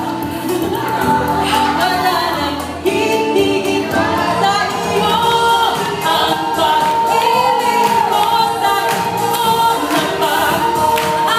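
A woman singing a song into a microphone over backing music, with other women's voices joining in.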